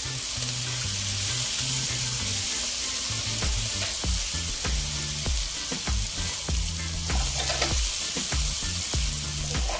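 Chopped eggplant and chillies sizzling in oil in a nonstick frying pan while a wooden spatula stirs them, the spatula scraping and tapping the pan every so often.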